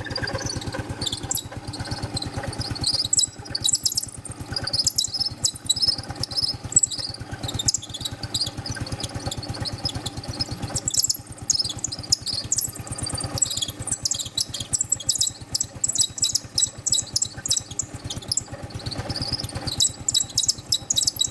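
Yamaha Neo 115 scooter's single-cylinder four-stroke engine idling, with an irregular high-pitched chattering from the kick-start pedal area. It is a strange noise that a little grease cures.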